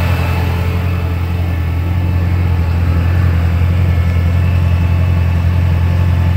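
The 2014 Camaro Z/28's 7.0-litre LS7 V8 idling steadily under the open hood.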